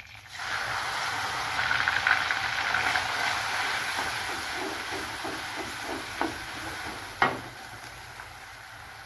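Coarsely ground onion sizzling as it hits hot oil in a kadhai. The hiss is strongest in the first few seconds and then dies down. A wooden spatula stirs it round the pan in short strokes, and there is a single sharp knock about seven seconds in.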